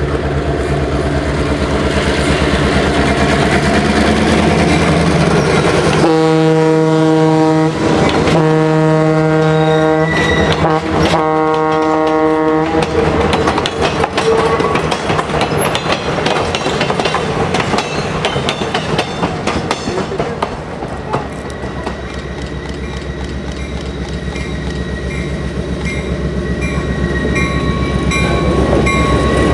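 Western Pacific F7A diesel locomotive running, then sounding a multi-note horn in four blasts (long, long, short, long), the grade-crossing signal. The train then passes with wheels clacking on the rails, and a high wheel squeal comes in near the end.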